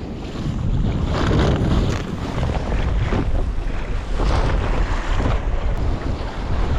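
Wind buffeting the microphone over open-ocean waves, with water washing and splashing around a kayak in rough swell; a heavy low rumble surges irregularly.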